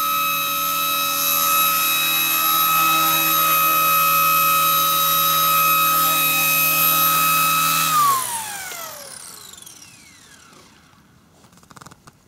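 cHP 120B micro electric RC helicopter hovering with a steady high motor and rotor whine. About eight seconds in the motor is cut on landing, and the whine glides down in pitch and fades as the rotor spins down.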